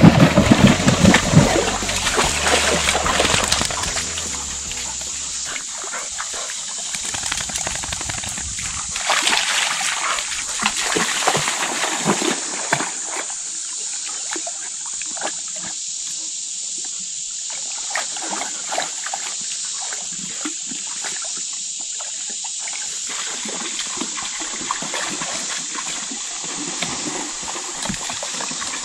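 A dog wading and splashing in a shallow creek: irregular sloshes and splashes over the steady rush of flowing water.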